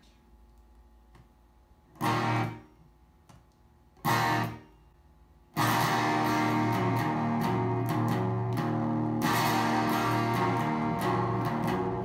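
Electric guitar played through a homemade LM386 breadboard mini amplifier into a bookshelf speaker. Two single strummed chords ring briefly about two and four seconds in, then continuous playing starts about halfway through.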